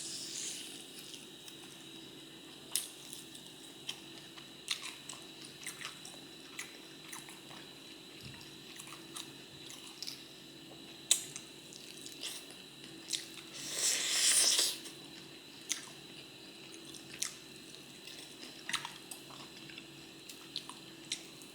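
Close-miked chewing and mouth smacking while eating fried chicken off the bone, with scattered sharp clicks and one louder crunchy bite about two-thirds of the way through. A faint steady hum runs underneath.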